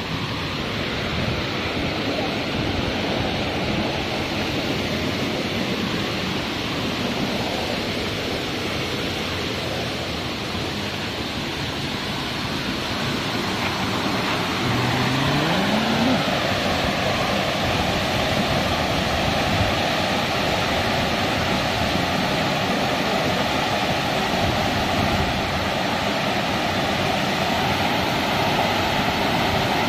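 Steady rush of falling water from a waterfall, growing louder about halfway through.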